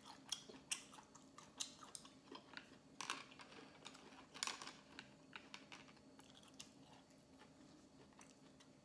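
Close-miked chewing of a mouthful of sushi roll: soft, wet mouth clicks and smacks at an irregular pace, thick in the first half and thinning out towards the end.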